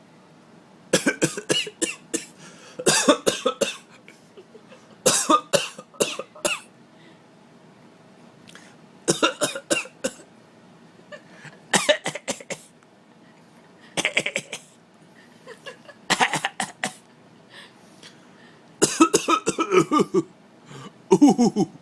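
An adult fake-coughing on purpose, in short clusters of sharp coughs repeated about every two to three seconds, nine times in all.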